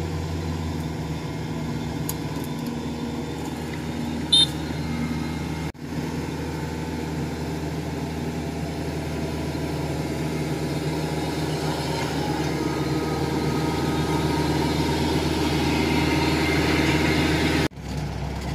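Tracked rice combine harvester's diesel engine running steadily as the machine crawls up the bank, growing louder as it comes close near the end. A single brief sharp sound stands out about four seconds in.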